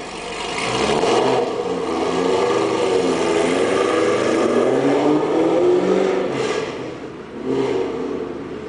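C5 Corvette's V8, breathing through long-tube headers, an X-pipe and a titanium exhaust, accelerating hard away. The revs climb steadily for several seconds and break off about six seconds in, then come back in a shorter burst as the car pulls away and the sound falls off.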